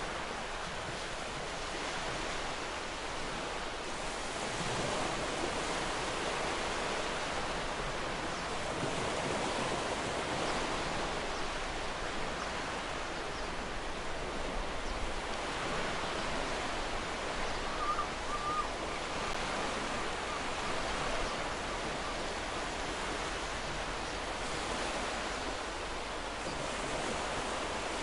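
Ocean waves washing onto the shore: a continuous rushing surf that swells and eases gently.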